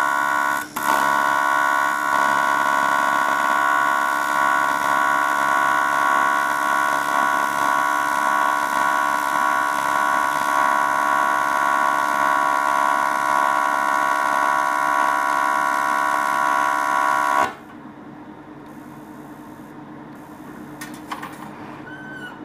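TIG (argon-arc) welding arc from a Grovers welder giving a loud, steady high-pitched buzz with a momentary break under a second in. It cuts off abruptly about seventeen seconds in, leaving a much quieter steady hum.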